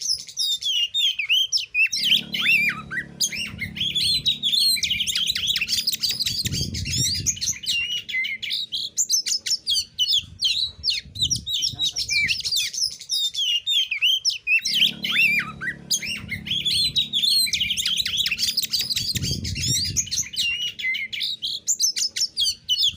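Oriental magpie-robin (kacer) singing a fast, varied run of high whistles, trills and chirps, the same stretch of song repeating about every 12 seconds, with a low hum under part of each repeat.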